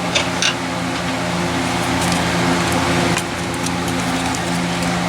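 Steady mechanical hum, like a shop fan, with a few light clicks and taps as vacuum hoses and connectors are worked loose on the engine.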